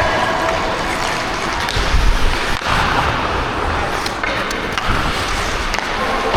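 Ice skate blades scraping and gliding on the rink, heard up close from the skater's own body, with a few sharp clacks of sticks or puck.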